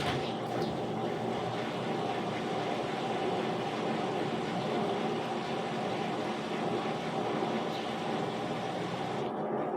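Front-load 10kg/6kg washer-dryer running with a steady mechanical drone and hum that is taken to be an abnormal noise.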